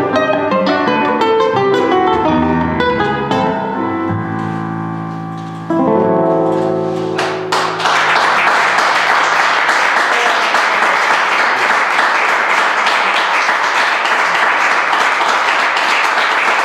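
Classical guitar and electric keyboard playing the closing bars of a chacarera, ending on a final chord struck about six seconds in and left to ring. About two seconds later applause breaks out and keeps going.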